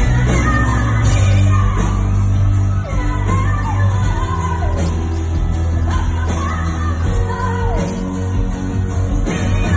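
Live band playing loudly, with a lead singer's voice over guitar and a heavy, boomy bass, recorded from the audience on a phone.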